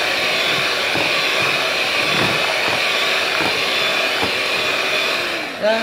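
Electric hand mixer running steadily, its two beaters whipping a thick cream-cheese and whipped-topping cheesecake filling in a plastic bowl, with a few knocks along the way. Near the end the motor briefly slows, its pitch dropping.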